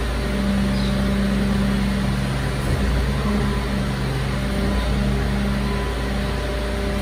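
Mercedes-Benz Arocs garbage truck's diesel engine running steadily at low revs, a constant low hum.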